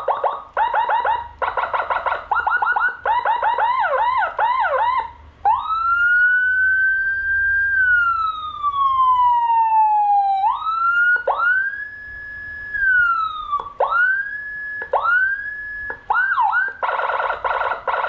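A 200-watt Whelen HHS siren module sounding loudly through a chrome siren speaker as it is switched from tone to tone. It opens with fast chirping yelps, then gives one slow wail rising and falling. Several quick up-sweeps follow that hold and drop off, and fast chirping comes back near the end.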